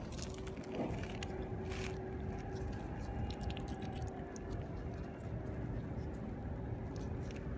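Shingle pebbles clicking and crunching as a gloved hand picks a stoneware bottle out of them, over a low rumble. A thin steady hum starts just after the opening and holds throughout.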